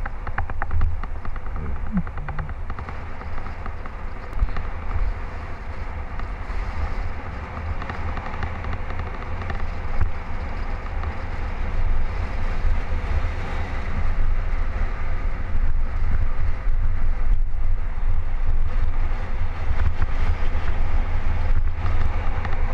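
Wind buffeting the camera's microphone on a fast road-bike descent: a heavy low rumble with a rushing hiss, getting louder about halfway through as the speed builds.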